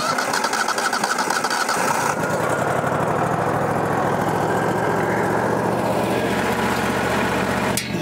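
Wood-Mizer LT40 portable sawmill's engine just fired up and running, noisier for the first couple of seconds and then settling to a steady idle.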